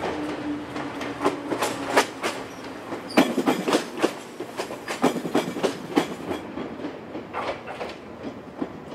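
Two-car Ryutetsu Nagareyama Line electric train passing close by. A steady hum ends about two seconds in, then the wheels clack over the rail joints in a quick run of knocks that thins out as the train moves away.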